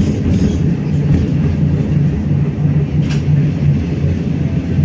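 BKM-60102 tram running along the track: a steady low rumble of motors and wheels on rail, with one sharp click about three seconds in.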